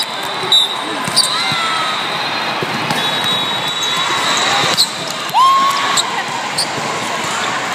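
Indoor volleyball play in a large, echoing multi-court hall: a few sharp thuds of the ball being hit and bouncing over a steady hubbub of voices and calls. A high steady whistle-like tone runs for a few seconds near the start, and short rising squeaks come twice.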